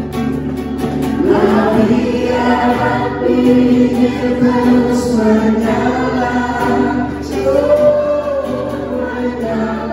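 Several voices singing a song together, the singing swelling in about a second in.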